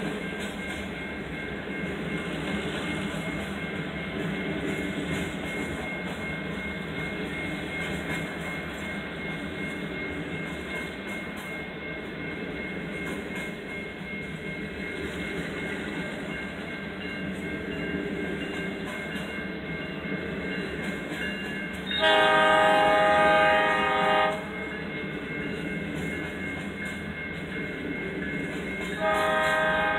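Empty coal hopper cars rolling past on the rails with a steady rumble and clatter. About 22 seconds in, the locomotive's air horn sounds one loud blast of a little over two seconds, and another blast begins near the end.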